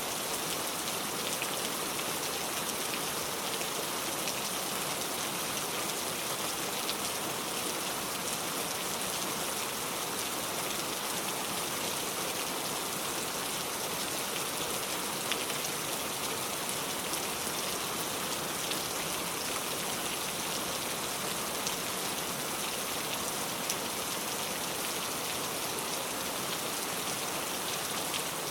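Steady heavy rain falling on surfaces, an even hiss with scattered individual drop ticks.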